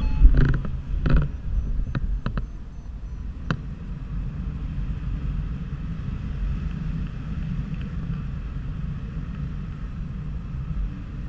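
Wind rushing over the microphone of a paraglider in flight: a steady low rumble. Several sharp clicks and creaks sound in the first three or four seconds.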